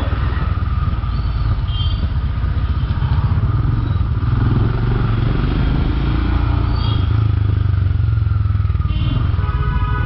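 Royal Enfield Himalayan's 411 cc single-cylinder engine running at low speed with a steady low throb, fitted with an aftermarket Motowings exhaust, as the bike rolls through slow traffic.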